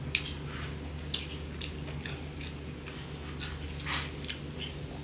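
Wet squishing and clicking of fingers mixing rice on a wooden platter, with two sharp clicks about a second apart near the start. Near the end a lime wedge is squeezed over the food.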